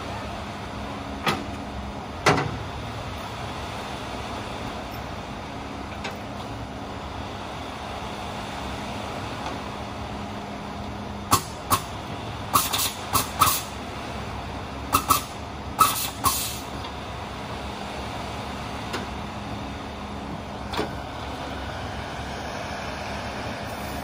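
Concrete mixer truck's engine running steadily at the rear of the truck, with sharp metallic clanks from the discharge chute: two single clanks a second or two in, then two quick clusters about halfway through.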